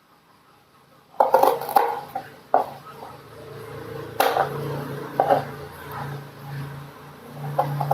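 Irregular knocks and clatter of kitchen utensils and dishes on a hard surface, in scattered groups, with a low steady hum coming in about four seconds in.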